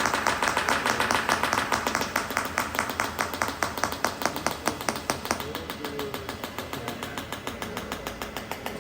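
Rapid, even mechanical clicking, about six to seven clicks a second, growing fainter over the second half.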